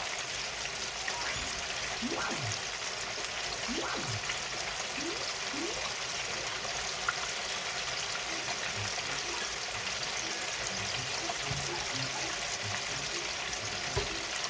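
Chicken wings deep-frying in very hot oil: a steady sizzling hiss, with a single knock near the end.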